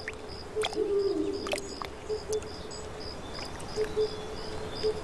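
Dusk insect chirping: a high chirp pulsing evenly about three times a second over a low steady tone that swells now and then, with a few sharp clicks in the first two seconds.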